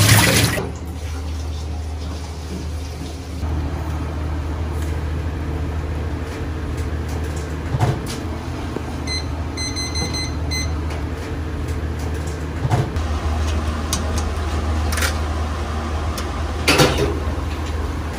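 Kitchen work sounds over a steady low hum: a few knocks and clatters of metal trays and utensils, and a short run of electronic beeps about ten seconds in. Water from a tap stops just after the start.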